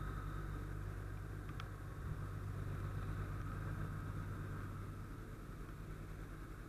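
Fire truck's diesel engine idling with a steady low hum and a faint whine above it, slowly growing fainter as the listener moves away from the truck.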